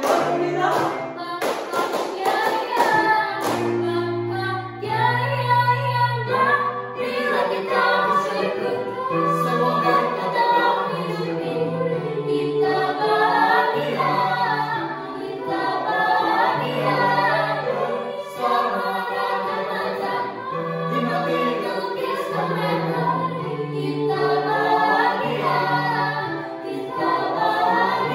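Mixed-voice school choir singing in parts, young women and men together, with low male voices holding a sung bass line under the melody. A few sharp percussive hits sound in the first couple of seconds.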